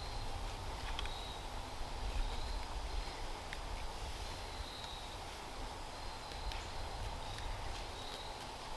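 Outdoor ambience with a faint high insect buzz that comes and goes over a low wind rumble, broken by a few faint clicks and scrapes of a Swiss Army knife blade shaving a piece of fatwood.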